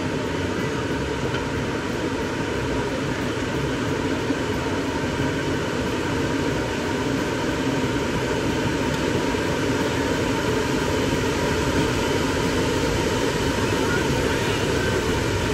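Golf cart driving along steadily: an even running noise of the cart, its tyres and the wind, with a faint steady whine.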